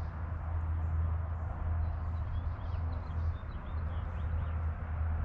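Steady low hum with faint small-bird chirps in the background, about two to three and a half seconds in.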